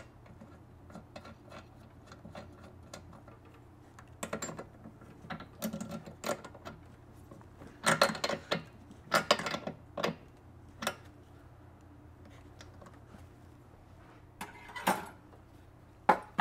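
Metal hand tool clicking and rattling as a spark plug is threaded into the two-stroke engine's cylinder and tightened with a plug wrench: scattered clicks and short rattling spells, the loudest about halfway through.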